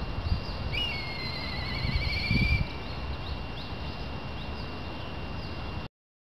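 Black kite calling once: a short high whistle that drops into a long, wavering trill lasting nearly two seconds, over a steady low rumble. The sound cuts off abruptly near the end.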